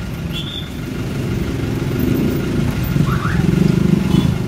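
Street traffic: motor vehicle engines running close by, a steady low rumble that gets louder about two seconds in.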